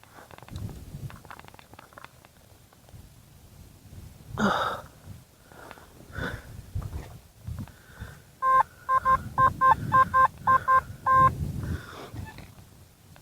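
Metal detector beeping: a quick run of about ten short, same-pitched beeps lasting under three seconds, starting about two-thirds of the way in, the sign of a metal target right under the detector. A brief noisy rush about four seconds in.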